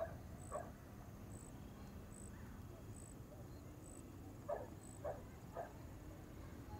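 Faint outdoor background with a few short, distant animal calls: two at the start and three more about four and a half to five and a half seconds in. A soft, high chirp repeats a little more than once a second throughout.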